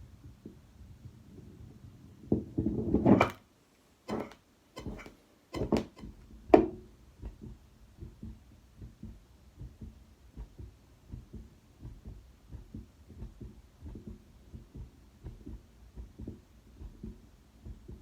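Heartbeat through a Rappaport-Sprague stethoscope after exertion, a regular low lub-dub beat. Between about two and seven seconds the beat is covered by a loud rumble and several sharp knocks, with brief cut-outs, as the chest piece is moved to a new listening point. After that the steady beat returns.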